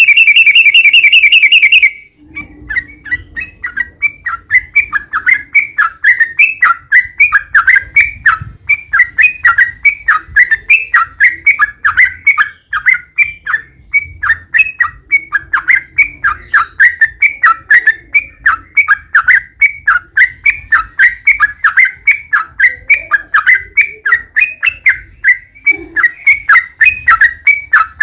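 Yellow-vented bulbul (trucukan) singing a long 'ropel' run. It opens with a dense, rapid trill, then switches abruptly about two seconds in to a fast, unbroken string of repeated down-slurred chirping notes.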